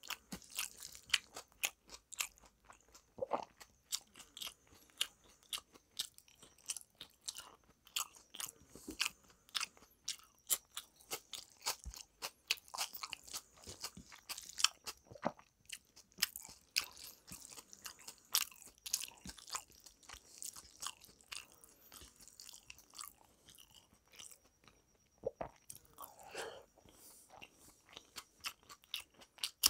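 A person chewing and crunching a mouthful of rice and side dishes, with crunches and wet mouth clicks coming several times a second and a somewhat louder stretch near the end.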